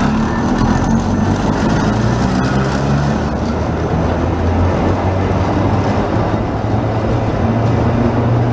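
Vintage two-car heritage tram running on street rails past and away, a steady low hum with rumble from its wheels and running gear. A single sharp click sounds about two and a half seconds in.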